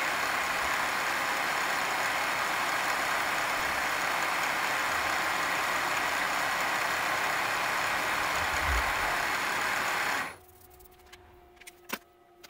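Vertical milling machine running with its tool cutting into a metal block: a steady mechanical whirr with a hiss of cutting. About ten seconds in the sound cuts off abruptly, leaving a few light clicks.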